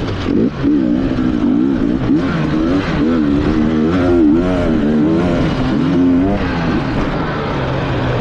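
Enduro dirt bike engine on the throttle, its pitch rising and falling again and again as the rider opens and closes the throttle over rough trail.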